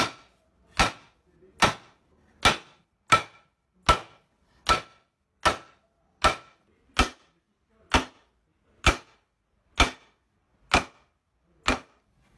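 Hammer blows on a timber beam, driving a Japanese-style interlocking wood joint together. There are about fifteen sharp strikes, roughly one every 0.8 s, slowing slightly toward the end, each with a short ring.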